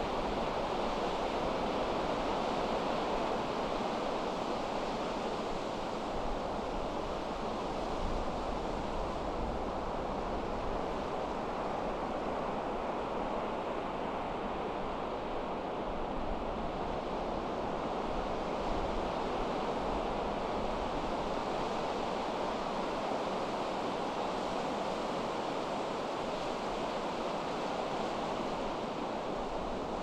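Pacific Ocean surf washing steadily onto the beach, with wind gusting over the microphone as a low, uneven rumble.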